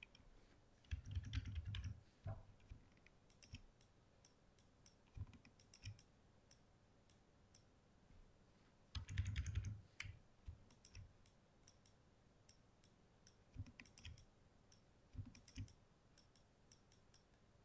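Faint, scattered clicks of a computer mouse and keyboard keys, with two short flurries of heavier taps, one about a second in and one about nine seconds in.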